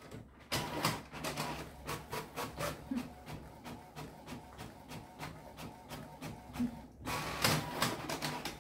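Canon GX6010 ink-tank inkjet printer printing a sheet: a steady run of rapid mechanical clicking and whirring from the paper feed and print head, louder for the last second or so.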